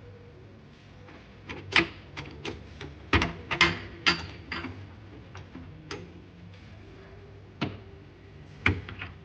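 Irregular sharp clicks and light knocks of hard parts being handled during bed-frame assembly, a quick run of them in the first half and a few single knocks later on.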